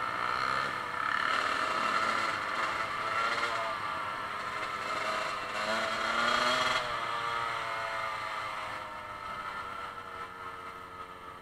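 Several dirt bike engines running on a forest track, rising and falling in pitch as they rev and slow down. They fade steadily over the last few seconds.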